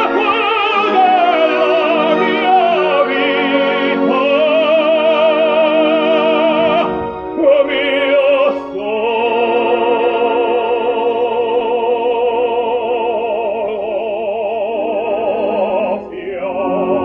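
Operatic singing with orchestra: long held notes with wide vibrato. There is a short break about seven seconds in and a fresh entry near the end.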